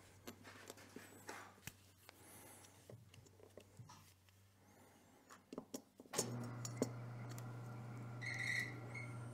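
Faint scattered clicks and light taps of small carburetor parts and pliers being handled on a workbench. About six seconds in, a steady low hum starts suddenly and becomes the loudest sound.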